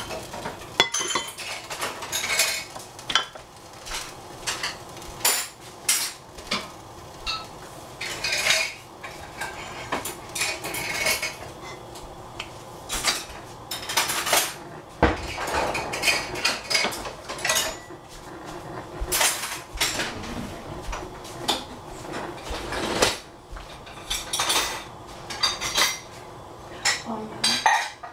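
Metal pots, pans and kitchen utensils clattering: many irregular clanks and clinks, some loud knocks.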